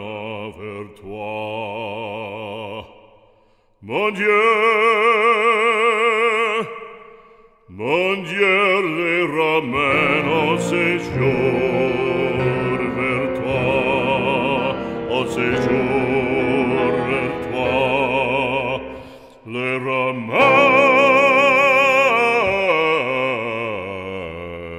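Background music: an operatic voice singing long held notes with wide vibrato, in phrases with short pauses between them, joined by a fuller, deeper accompaniment about ten seconds in.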